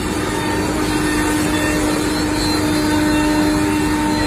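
Selexx Pal CNC router running, a steady machine drone with a strong constant hum.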